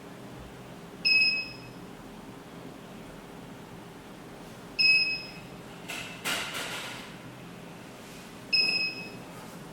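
Keypad of an ATSS Active 207 burglar alarm panel giving three short, high single beeps a few seconds apart as its keys are pressed to enter the zone password. A brief rustling noise comes between the second and third beep.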